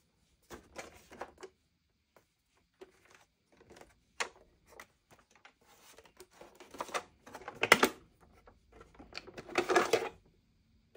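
Handling noise around a CPAP machine: irregular clicks, clatters and rustling in several short bursts, the loudest about two-thirds of the way through.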